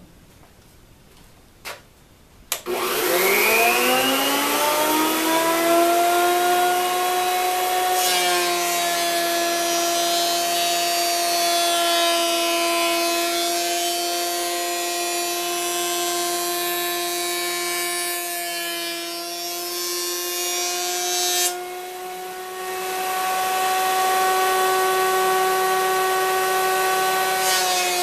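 Delta benchtop jointer switched on about two and a half seconds in, its motor whine rising in pitch as it spins up and then running steady. From about eight seconds in a board is fed over the cutterhead, adding the loud hiss of the knives planing wood, with a short break a little after twenty seconds before a second pass.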